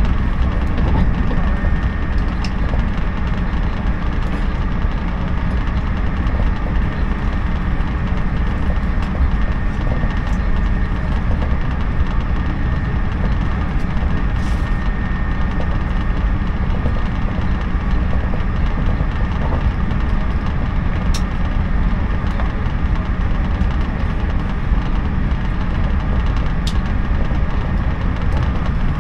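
JNR 113 series electric train heard from inside the carriage while running at speed: a steady low running noise of wheels on rail, with a couple of sharp clicks in the second half.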